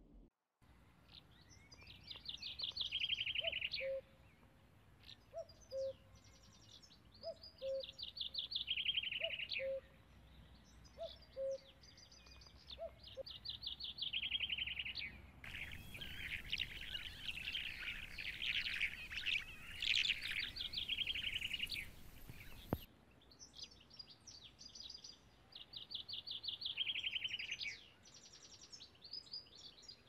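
Songbird singing a short, rapid, falling trill, repeated every two to three seconds. A low two-note call repeats underneath during the first half. The song grows denser and louder for several seconds in the middle.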